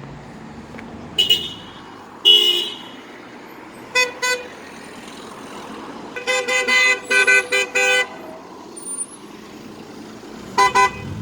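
Car horns honking from passing vehicles: a double toot about four seconds in, a run of several quick honks in the middle, and two short toots near the end, over steady background noise. Two loud high-pitched bursts come before the honks, the louder one about two seconds in.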